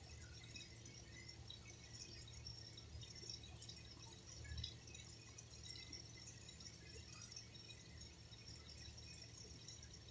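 Water trickling and dripping, a steady patter of small drops over a faint low rumble.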